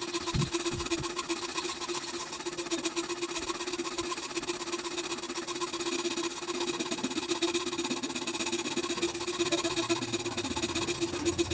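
A small electric power tool's motor running steadily, with one constant hum and a fast buzzing rattle.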